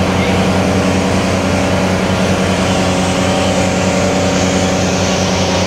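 New Holland T7060 tractor's 6.7-litre FPT six-cylinder diesel running steadily under heavy load on a PTO dynamometer, held at a constant speed of about 850 PTO rpm.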